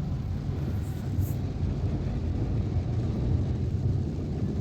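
Steady low rumble inside a Citroën car's cabin as it drives through floodwater.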